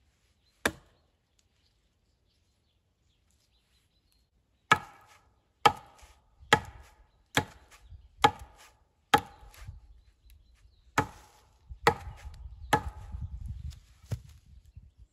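Hatchet chopping into a wooden pole laid across a log. One blow comes first, then after a pause about ten sharp blows roughly a second apart.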